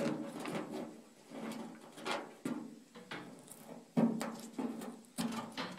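Fingers scratching and picking at old tape stuck to the underside of a car's steel roof panel: irregular scrapes and light knocks, the sharpest at about four seconds.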